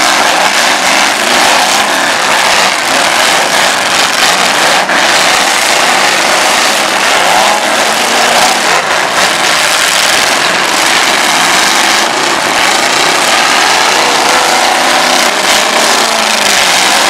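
Several demolition derby cars' engines running and revving hard as the cars push against each other in a pack, the engine pitch rising and falling over a dense, steady din.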